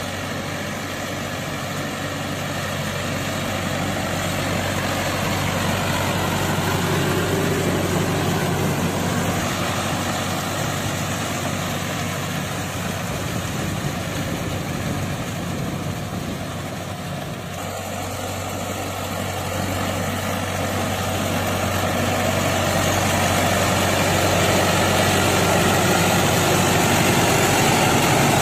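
Mahindra Sarpanch tractor's diesel engine running steadily under load as it drags a rotavator through flooded paddy mud. It swells and fades slowly and is loudest near the end, when it is close by.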